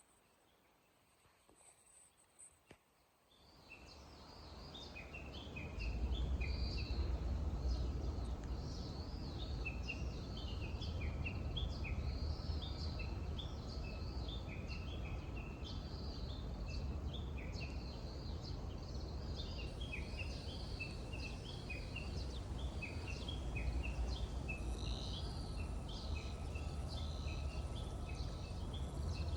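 Many small birds chirping together in a dense, continuous chorus of short, quick notes, over a steady low rumble. It fades in from near silence over the first few seconds.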